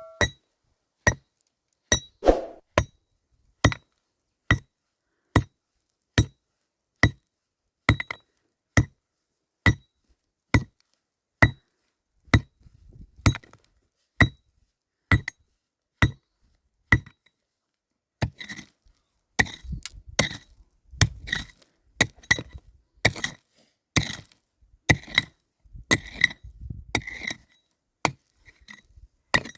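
Repeated strokes of a metal tool striking wood, each with a short metallic ring, at a steady pace of roughly one every 0.8 s; about two-thirds of the way through the strokes turn quicker and more uneven, with scraping between them.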